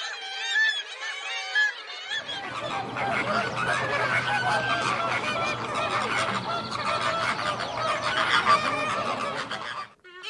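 Geese honking: single arched calls at first, then, after a cut about two seconds in, a louder flock of many overlapping honks over a low rumble that stops abruptly near the end.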